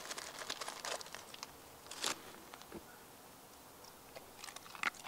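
Faint crinkling of a plastic bag of dog treats being handled: a run of small crackles, one louder crackle about two seconds in, then a few scattered ones near the end.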